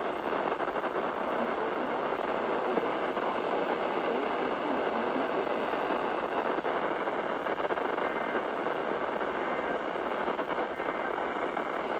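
Steady radio static hiss from a weather-radio receiver tuned to a weak NOAA Weather Radio signal that is barely coming in; no voice or alert tones can be picked out of the noise.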